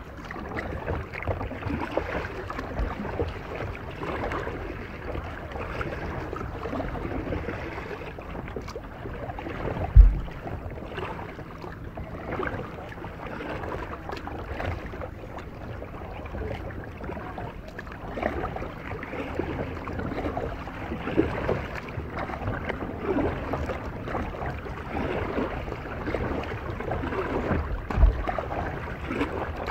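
Kayak paddle strokes: a double-bladed paddle dipping and splashing in river water stroke after stroke, with water and wind noise. Two short low thumps stand out, the louder about ten seconds in and another near the end.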